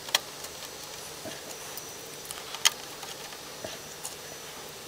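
Small screwdriver and small metal screws clicking as the daughtercard's screws are picked up and driven into the circuit board. There are two sharp clicks, just after the start and about two and a half seconds later, with a few fainter ticks between, over a faint hiss.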